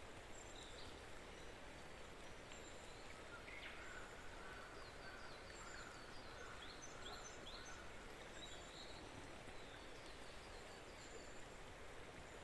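Small songbirds chirping and singing faintly, with short high calls scattered throughout and a busier stretch in the middle, over a steady background hiss.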